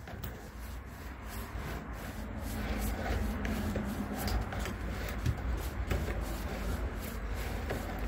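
A paint roller on an extension pole rolling deck stain onto wooden deck boards: repeated rubbing strokes that get louder about three seconds in.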